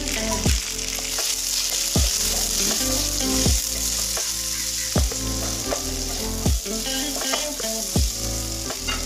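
Chicken, onions and tomatoes sizzling as they fry in a nonstick pan, stirred with a wooden spatula, under background music with a steady beat.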